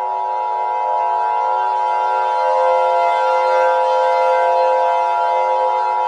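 Emergency Alert System attention signal: a loud, steady chord of several electronic tones held without change, siren-like.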